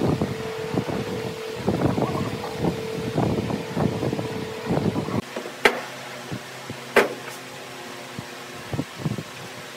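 A stick scraping and tapping against a plastic cup of wood glue and against a timber beam as the glue is spread, with two sharp clicks in the second half. A faint background hum stops about halfway.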